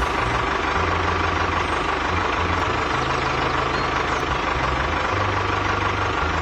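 A motor or engine running steadily, its low hum stepping slightly up and down in pitch.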